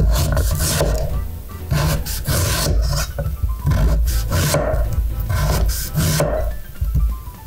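Sweet potato being peeled: repeated rasping scrapes of the blade along the skin, roughly one to two strokes a second.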